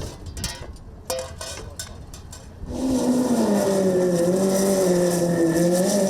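Sprintcar V8 engine running hard on track. It comes in loud a little under three seconds in, after a quieter stretch of low rumble and clicks, and then holds a steady, slightly dipping pitch.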